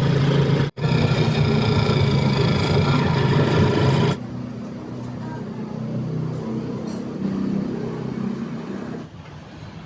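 Motor vehicle engine running with road noise, steady and loud at first. The sound briefly cuts out near the start, then drops abruptly to a quieter rumble about four seconds in.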